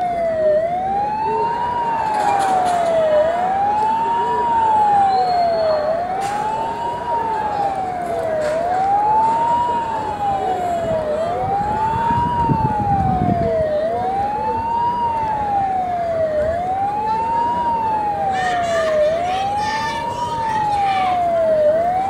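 Siren wailing, its pitch sweeping smoothly up and down in a steady cycle about every two and a half seconds, over a crowd's murmur.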